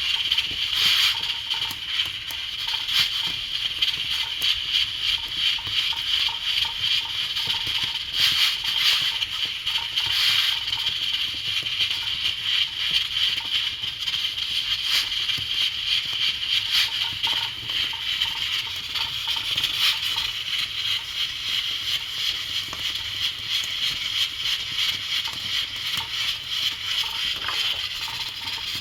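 Pressure cooker hissing as steam escapes through its valve: a steady high hiss that flutters rapidly in loudness, with a few louder surges.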